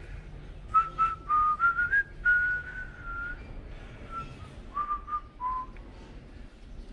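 A person whistling a tune: a string of clear, held notes stepping up and down in pitch, ending on a few lower notes.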